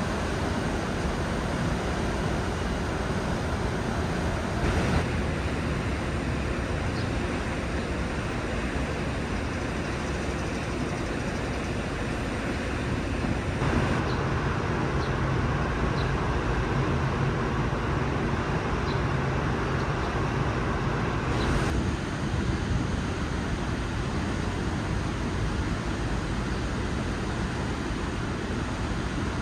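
Steady urban traffic noise, an even rumble and hiss from nearby streets, shifting abruptly in tone three times.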